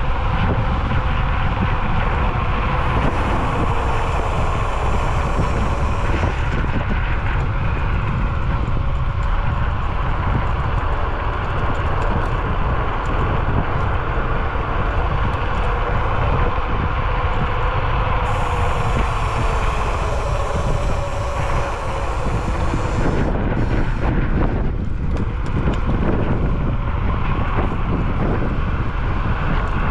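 Electric scooter riding uphill: wind buffeting the microphone, with the steady whine of the scooter's motor drifting slightly in pitch as the speed changes.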